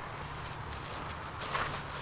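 Soft footsteps on grass, a few light steps, over a low steady rumble.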